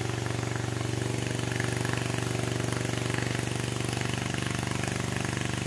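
Two-stroke engine of a New West 707 chainsaw running steadily at low speed, an even buzz with no revving.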